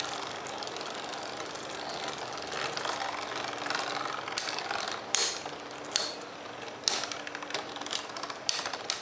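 Two Beyblade Metal Fusion spinning tops, Lightning L-Drago and Meteo L-Drago, spinning against each other with a steady rasping hiss. From about halfway through they clash repeatedly, in sharp clicks roughly a second apart.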